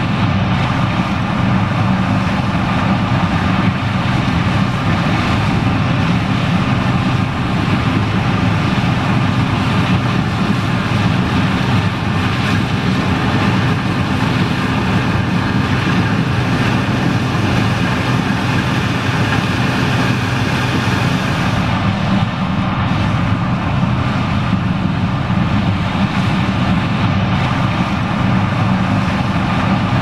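John Deere 9560STS combine harvester running steadily under load while harvesting corn, an even drone of engine and threshing machinery, mixed with a tractor running alongside.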